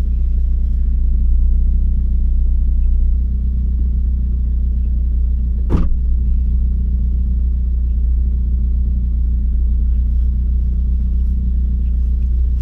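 Mk3 Ford Focus ST's turbocharged 2.0-litre four-cylinder, fitted with a big rotated turbo, running under steady load with its low drone heard from inside the cabin with the window up. A single brief sharp sound cuts in about six seconds in.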